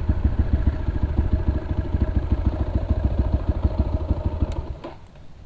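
Gazgas GE 250 GZ2's 250cc single-cylinder four-stroke engine running at low speed with a fast, even putter, then cutting off near the end with a couple of clicks.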